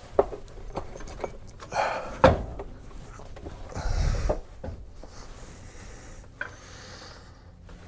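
Knocks, clunks and scraping as a twin I-beam front suspension pivot arm, fitted with new polyurethane bushings, is forced up into its bracket, with a cluster of sharp knocks about two seconds in and a longer, louder rub about halfway through.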